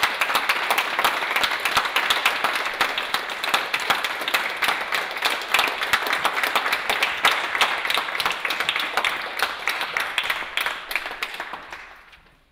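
Audience applauding: many hands clapping in a dense, steady patter that fades out near the end.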